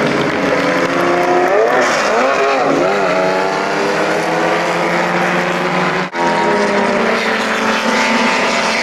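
Classic race car engines running loud as the cars race through a corner, their revs rising and falling. The sound drops out for an instant about six seconds in, then more race cars are heard running on a straight.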